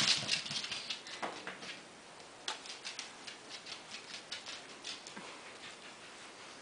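A dog's claws clicking on a hard kitchen floor as it trots about: a run of light ticks, about three or four a second, starting about two and a half seconds in and fading out.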